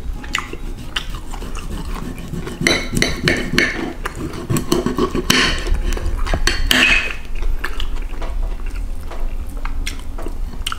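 Knife and fork cutting through a seared duck breast on a ceramic plate, with repeated scrapes and clinks of metal on the plate and a few louder scraping strokes.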